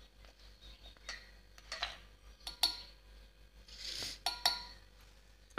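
A plastic measuring spoon tapping and scraping against a steel bowl and a stainless-steel mixer jar as powdered sugar is scooped and tipped in: a handful of light, separate clicks, with a short scrape a little before the last two taps.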